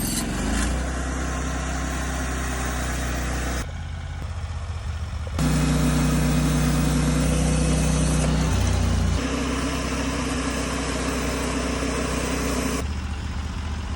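Sawmill engine running steadily, its level and pitch shifting several times: it drops about four seconds in, comes up louder a second or so later, shifts again around the middle and eases off near the end.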